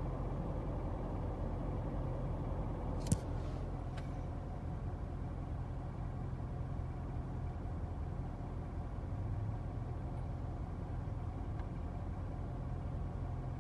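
Steady low hum of a car running slowly or idling, heard inside the cabin. A sharp click about three seconds in, then a fainter tick a second later.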